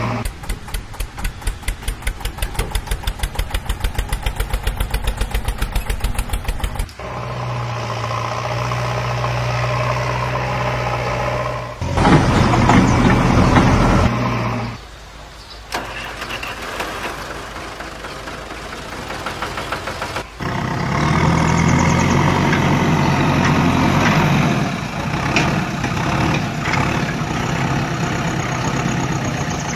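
Motor vehicle engine sounds in several abruptly changing segments: a chugging run at about seven beats a second, then a steadier hum, a louder stretch about twelve seconds in, a quieter lull, and steady running again from about twenty seconds on.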